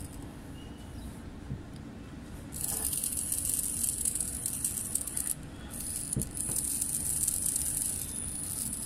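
Tiny electric motor of a miniature solar toy car whirring as it spins the wheels freely while the car is held in the hand. The high-pitched whine starts a couple of seconds in, drops out briefly just past halfway, then resumes. The motor runs only while the solar panel is in direct sunlight.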